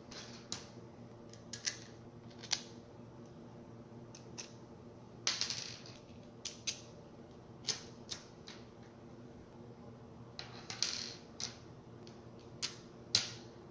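Thin laser-cut plastic frame layers clicking and tapping against each other and the wooden tabletop as they are set down and stacked, about a dozen irregular clicks, with a short scrape twice as a piece slides into place.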